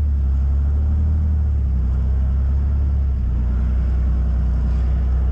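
Armoured military vehicle's diesel engine running steadily as it drives, heard from on board as a deep, even drone that shifts slightly in pitch about three seconds in.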